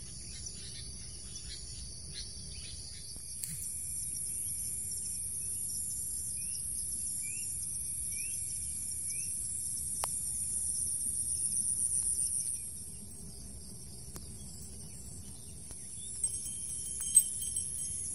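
Steady high-pitched insect chorus in the countryside, with a bird calling a run of about five short rising notes partway through and a couple of sharp clicks near the end.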